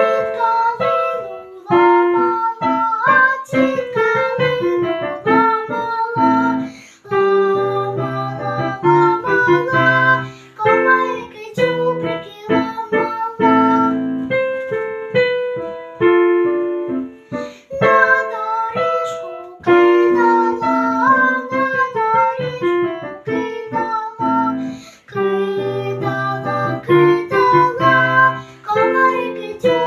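Piano music playing a melody over chords, with a child's singing voice over it at times.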